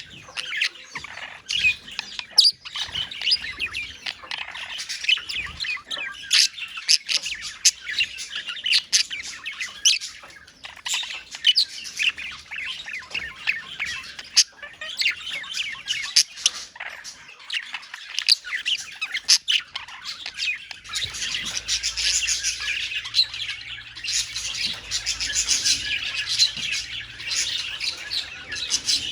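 Budgerigars chirping and chattering continuously, a dense run of quick high calls. A low steady hum joins in about two-thirds of the way through.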